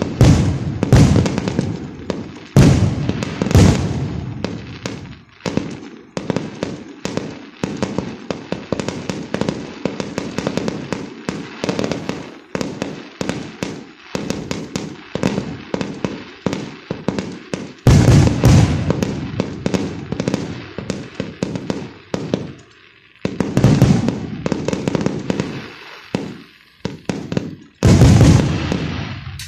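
Fireworks going off in rapid succession: dense crackling bangs, with heavier booming volleys several times, the loudest about 18 s in and again near the end.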